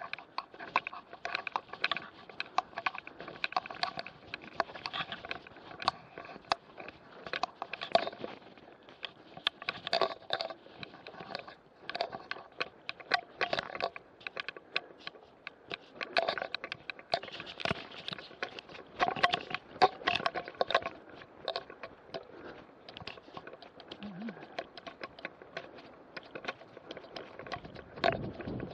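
Mountain bike moving slowly over a rough, grassy singletrack: dense, irregular clicking, rattling and scraping from the bike and its bar-mounted camera, with vegetation brushing past.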